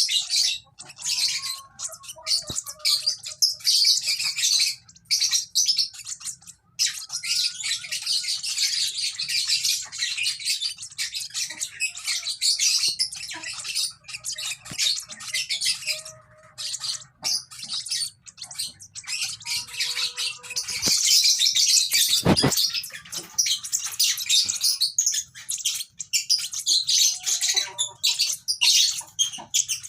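Lovebirds chirping: rapid, high-pitched chirps in near-continuous runs broken by brief pauses. There is a single sharp knock about three-quarters of the way through.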